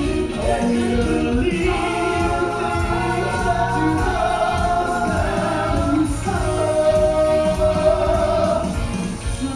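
Live soul band with a group of singers holding long notes together in harmony, in a gospel style.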